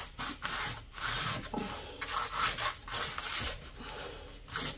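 A pastel stick dragged across paper in a quick, irregular series of scratchy strokes, about two or three a second, as marks are laid down over the painted surface.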